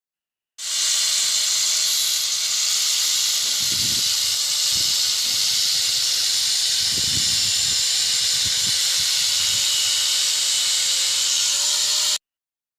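A loud, steady hiss that starts suddenly about half a second in, carries a faint wavering tone and a few low knocks, and cuts off abruptly near the end.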